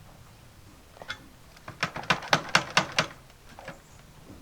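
A quick run of sharp taps or knocks on a hard object: a couple near the start, then a fast burst of about eight to ten in a second or so.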